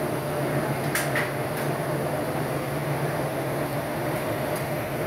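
Steady hum and rumble of glassworks machinery: furnaces and extraction fans running, with a couple of short light clicks about a second in and another near the end.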